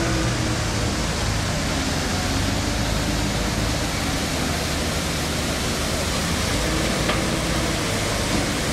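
Steady rushing noise of storm runoff pouring down a landslide slope in a thin waterfall, with a low steady rumble underneath.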